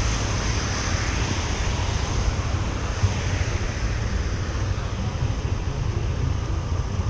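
Yamaha Aerox scooter on the move: wind rushing over the microphone over a steady low drone of engine and road noise.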